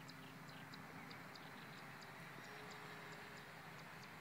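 Faint, distant drone of a radio-controlled Kyosho Cessna 182 Skylane model plane's motor flying high overhead, a steady low hum that shifts a little in pitch. Over it runs a regular series of short, high chirps, about three a second.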